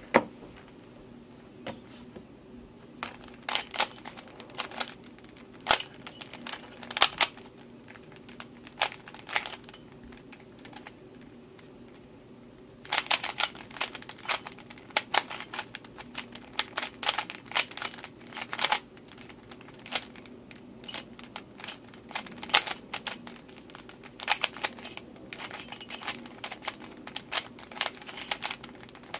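Rubik's brand 3x3 cube, lubed with silicone, being turned fast in a speedsolve: runs of quick plastic clicks and clacks as the layers turn, with short pauses between bursts. About ten seconds in the turning stops for a couple of seconds, then picks up again in a denser run.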